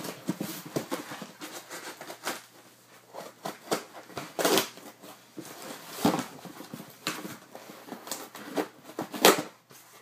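A mail package being worked open by hand: irregular rustling and crackling of the packaging, with several sharper rips or snaps every second or two.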